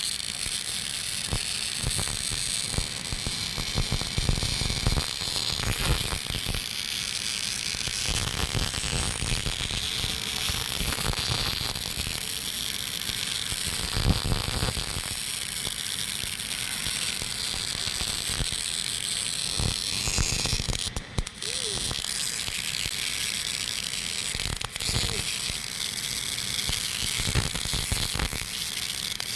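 GMAW (MIG) welding arc at about 105 A and 15.7 V, crackling and buzzing steadily in short-circuit transfer while an open root pass is run uphill on a pipe in the 5G position. The arc breaks off for a moment about two-thirds of the way through, then carries on.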